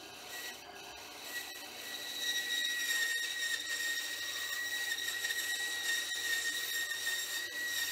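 Benchtop band saw cutting a V notch into a piece of aluminium: a steady high-pitched whine with hiss from the blade in the metal, growing louder about a second and a half in as the cut bites.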